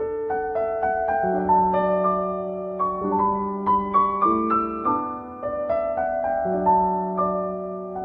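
Gentle piano music: a flowing melody of single notes over held lower notes.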